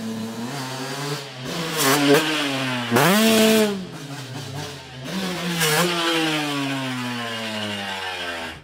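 2003 Suzuki RM125's single-cylinder two-stroke engine revving up and down under throttle, with a sharp rev about three seconds in. Over the last couple of seconds the revs fall steadily, and the sound cuts off suddenly at the end.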